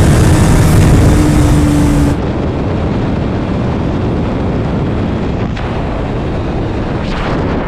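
Motorcycle at high speed: a steady high-revving engine note over heavy wind rush. About two seconds in, the sound cuts abruptly to a duller, steady wind roar with no clear engine note, as the TVS Apache RTR 160 4V runs at about 120 km/h and starts to slow.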